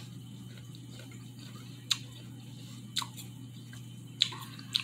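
Quiet eating of apple slices with peanut butter: four faint, sharp, wet-sounding clicks spread about a second apart, over a low steady hum.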